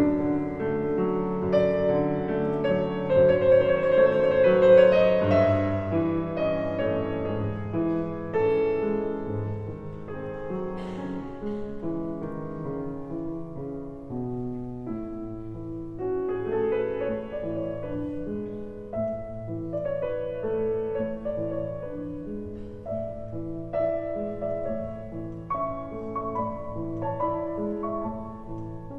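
Instrumental piano music, a melody over held chords, louder in the first few seconds and softer after.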